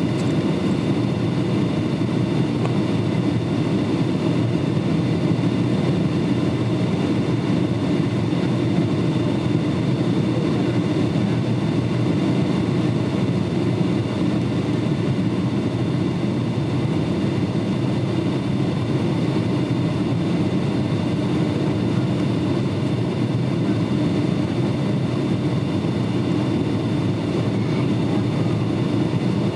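Steady cabin noise inside a Boeing 757 airliner descending toward landing: a constant rush of engine and airflow noise, with a few faint high steady tones over it.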